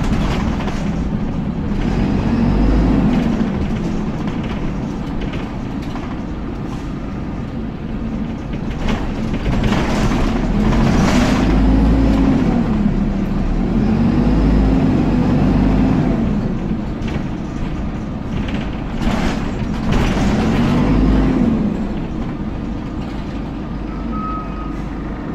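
Dennis Dart SLF single-deck bus heard from inside the saloon on the move: the diesel engine note rises and falls about four times as it pulls away and changes up through the gears, over the steady noise of the engine's cooling fan. A short hiss of air comes about halfway through.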